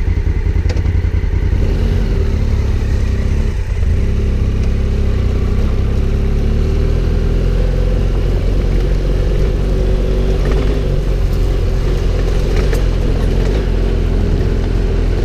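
Adventure motorcycle engine running steadily under way, with a brief dip in the engine note a little under four seconds in.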